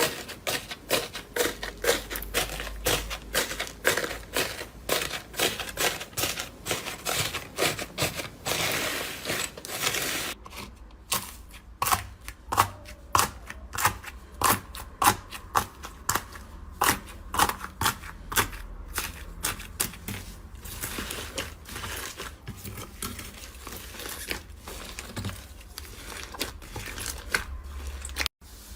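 Crunchy material being squeezed and crushed: dense crackling for about ten seconds, then thinning into separate sharp pops and clicks, a few a second.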